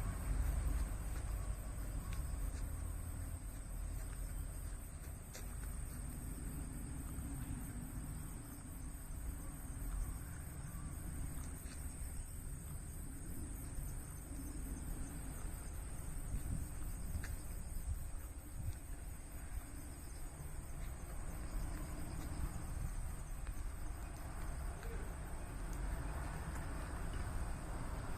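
A steady, high-pitched chorus of autumn insects, pulsing rapidly without a break, over a low rumble.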